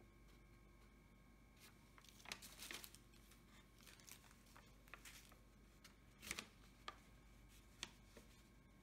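Small plastic zip-lock bags of diamond painting drills crinkling in short, quiet rustles as a bag is picked up and set down among the others on a plastic sheet.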